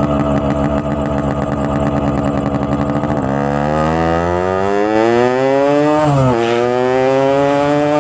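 Freshly restored Yamaha RX-King's single-cylinder two-stroke engine runs at a steady, pulsing low speed for about three seconds. The revs then climb steadily, drop sharply about six seconds in and climb again.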